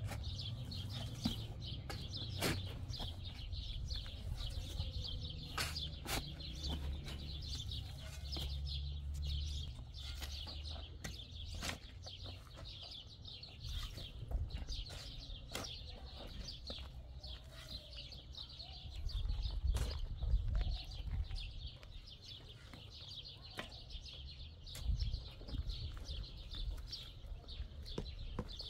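Many small birds chirping continuously over a low, uneven rumble, with scattered clicks and knocks.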